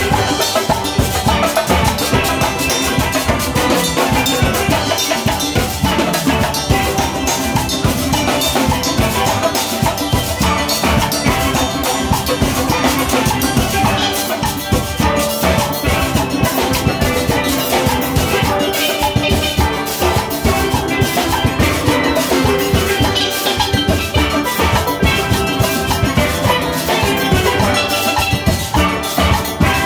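Steel band playing live: steel pans from short tenor pans to full-barrel bass pans carry the tune over a drum kit's steady beat, without a break.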